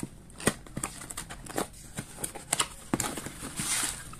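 Small cardboard product box being handled and opened by hand: irregular taps and scrapes of cardboard, then a short rustle of paper and bubble wrap near the end.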